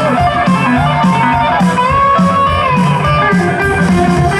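Live rockabilly band: a Gretsch hollow-body electric guitar plays a lead line with pitch bends over a steady bass and drum beat.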